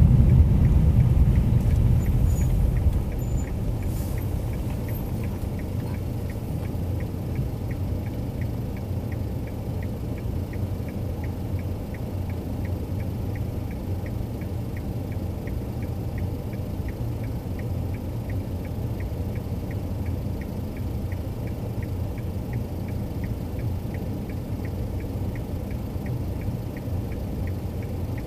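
Car in motion heard from inside: a low road and engine rumble that drops to a quieter steady hum about three seconds in, with a faint, even ticking of about three ticks a second running over it.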